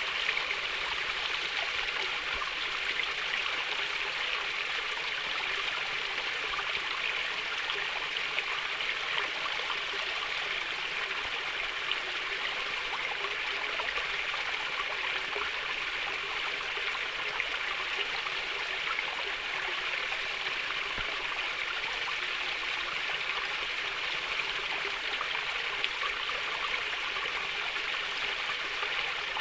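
Shallow stream of water flowing and trickling steadily, a constant gurgling babble.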